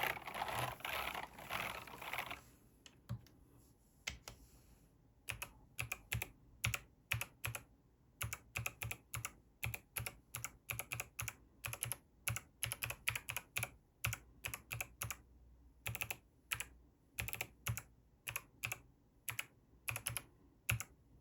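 Keystrokes on the 8BitDo C64 Edition mechanical keyboard and numpad: single, unevenly paced key clicks, about one to three a second with short pauses, after a couple of seconds of continuous clatter at the start.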